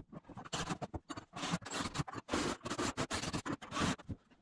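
Irregular scratching, scraping and clicking as the steering wheel's mounting hardware on a plywood helm is handled and worked on by hand.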